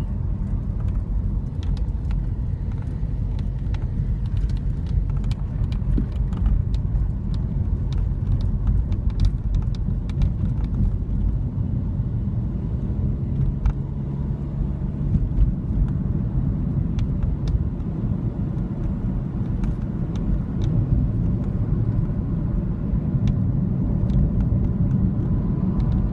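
Third-generation Toyota Vios being driven, heard from inside the cabin: a steady low road and engine rumble with irregular light clicks and ticks throughout, a rattle from the dashboard.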